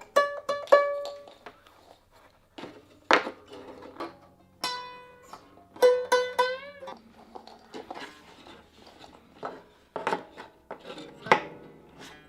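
Gayageum strings plucked in single notes that ring and fade. A note about six seconds in bends and wavers in pitch.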